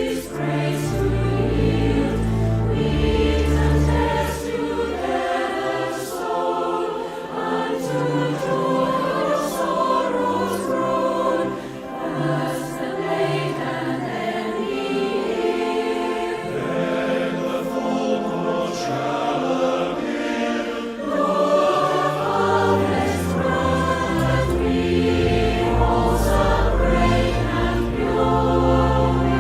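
Choir singing a hymn with accompaniment. The deep bass drops out a few seconds in and comes back with fuller sound about two-thirds of the way through.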